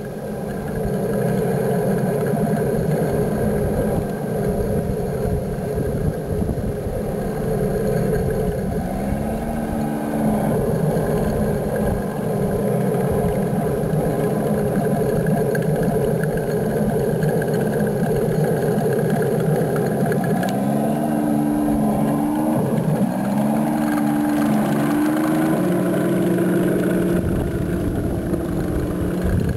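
1/6 scale radio-controlled King Tiger tank driving, with a steady engine-like drone. Its pitch climbs and levels off once about nine seconds in and three more times in the last third.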